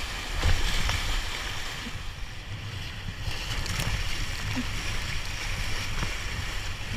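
Whitewater rapids rushing and breaking around a kayak, with a few splashes as the bow and paddle cut through the waves, over a low rumble of wind and water on the camera microphone.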